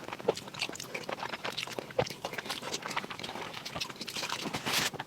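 Close-miked chewing and lip-smacking of a person eating fatty pork: an irregular run of short smacks and clicks, with a brief hiss near the end.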